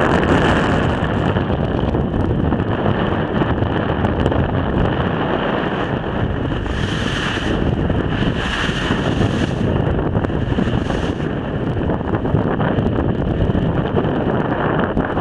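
Strong wind buffeting the microphone on a boat in rough sea, a steady rushing noise with the wash of waves beneath it.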